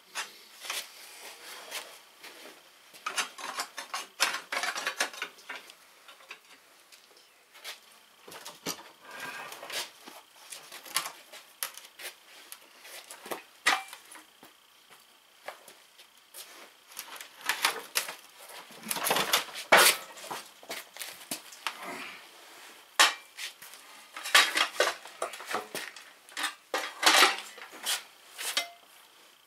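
Hand tools and steel parts of a garden tractor's rear axle clinking and clattering irregularly, in several bursts of quick metallic knocks.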